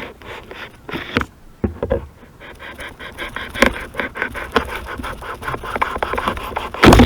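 Quick, repeated back-and-forth rubbing strokes on body filler on a car dashboard, several strokes a second, with a single loud knock near the end.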